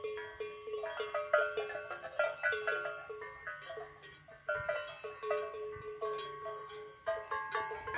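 Several cowbells worn by cattle clanking irregularly at different pitches, each strike ringing on briefly.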